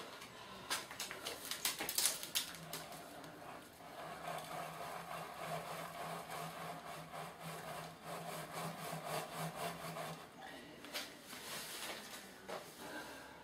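Gritty bonsai soil crunching and scraping as a field maple's root ball is set into a plastic training pot and worked down into the mound of soil by hand, with quick clicks and rattles of grit during the first couple of seconds. A steady low hum runs underneath from about two and a half seconds in until about ten seconds.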